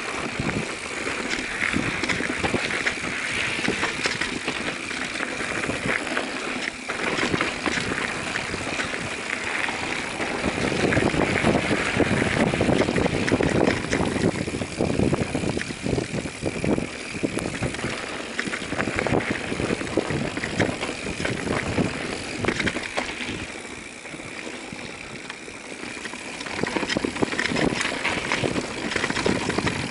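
Mountain bike riding fast along a rough dirt singletrack: knobby tyres rolling over dirt, roots and stones, and the bike rattling and knocking over the bumps. It gets louder about a third of the way in and softer again past the middle.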